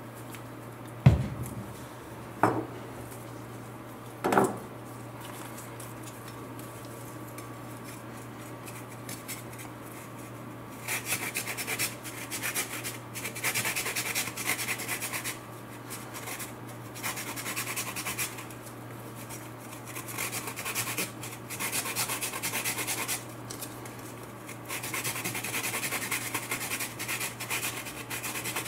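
Fresh lemon rubbed against a small handheld fine grater, zesting the peel: spells of dry rasping strokes coming in four runs through the second half. Three sharp knocks come in the first few seconds.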